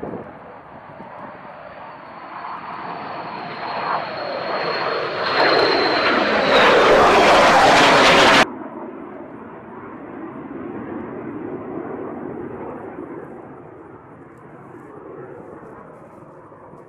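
Fighter jet engines running: a high, steady whine over a rushing jet noise that grows louder, then cuts off abruptly about eight seconds in to a quieter, steady jet rumble.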